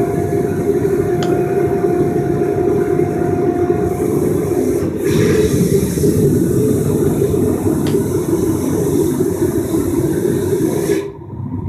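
Small homemade turbojet engine on a test bench, fed from a gas bottle, running: a loud, steady rushing rumble with a faint high tone over it for the first few seconds. Near the end the higher part of the noise cuts off abruptly.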